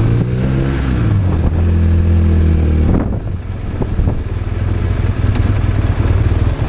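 BMW R1200RT's flat-twin boxer engine running under way, its pitch holding fairly steady for the first three seconds. About three seconds in the note breaks off and drops to a lower, rougher rumble as the throttle eases.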